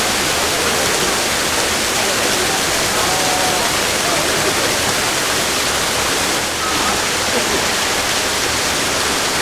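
Steady rushing water: an even, unbroken hiss.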